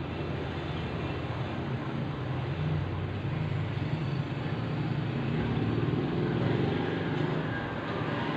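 Steady low rumble of road traffic, swelling a little midway.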